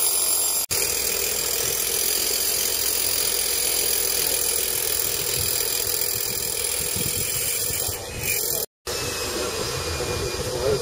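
Steady mechanical background noise, like an engine running nearby, with a brief dropout near the end.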